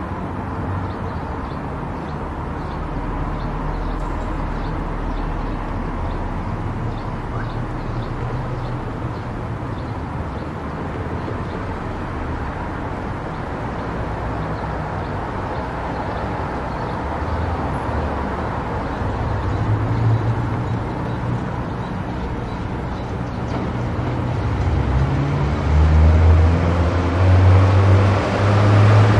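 Car driving on an expressway: steady tyre and engine drone, growing louder over the last few seconds.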